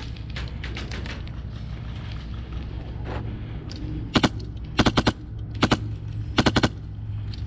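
Airsoft guns firing. Faint scattered shots in the first few seconds, then short close bursts of two to four shots, starting about four seconds in and coming roughly every half to one second, over a steady low hum.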